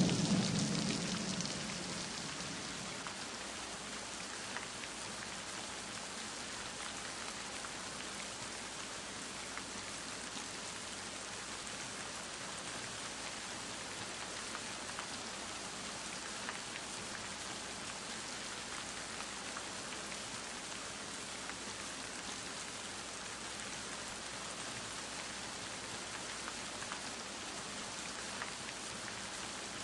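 Steady rain falling, with scattered drop ticks; a low rumble fades out over the first two seconds.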